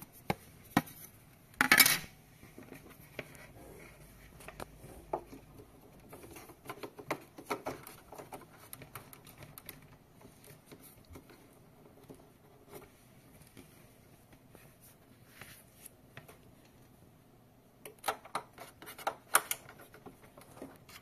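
Plastic clicks, taps and scrapes from handling a cable at the ports on the back of a monitor, with a brief louder clatter about two seconds in and a run of knocks near the end.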